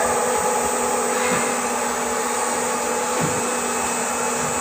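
Electric motor with a mechanical speed variator and worm reduction gearbox, fed by a frequency inverter and driving a belt conveyor, running at a steady speed: an even hum and whine with several constant tones.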